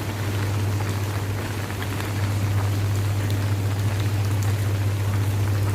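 Steady rain falling, with small scattered drop ticks, over a constant low hum.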